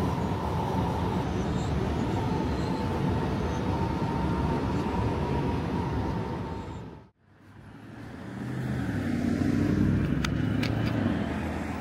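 Steady road-traffic noise with a faint steady tone through it. It cuts out suddenly about seven seconds in, then fades back up as a vehicle engine running, with a couple of light clicks near the end.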